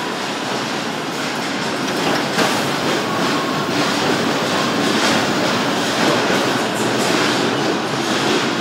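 Car assembly line machinery running: a steady industrial din with scattered clanks and clicks.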